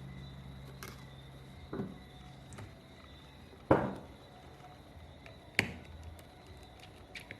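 Small sharp clicks and taps of a screwdriver and small tools against an iPhone's frame and the work surface while its tiny internal screws are taken out. The loudest click comes about halfway through and a second sharp one nearly two seconds later, with a faint low hum stopping about two seconds in.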